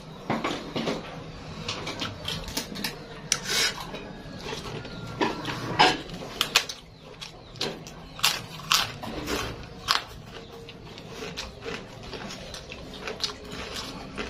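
Close-up eating sounds: fingers scooping rice and sambal off a plate, chewing, and crunching a fried cracker (kerupuk). They come as an irregular run of sharp clicks and crackles, loudest about six seconds in.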